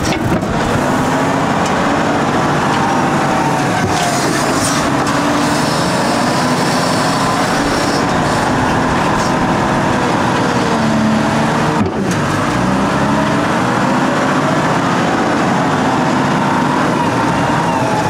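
Volvo L150H wheel loader's diesel engine working as the loader moves sand, its pitch rising and falling with the throttle, with a short break about twelve seconds in.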